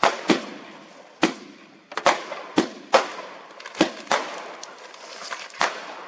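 Fireworks going off: a run of about nine sharp bangs at uneven intervals, some in quick pairs, each followed by a short echo.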